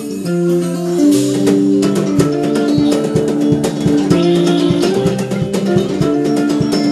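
Death metal played back at double speed, pitched up like a fast-forwarded tape: a guitar riff of held chords, with fast, dense drumming coming in about a second in.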